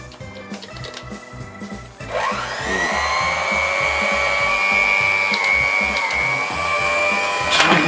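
An electric kitchen mixer spins up about two seconds in and then runs at a steady speed. There is a sharp clack near the end.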